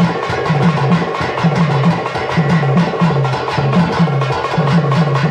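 Karakattam folk music: a thavil barrel drum played in fast, even strokes over a low, repeating pitched phrase.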